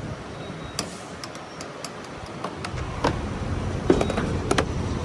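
Scattered light clicks and a few sharper knocks from handling the fuel nozzle and filler cap just after the pump has clicked off on a full tank, over a low background rumble that grows louder a little under three seconds in.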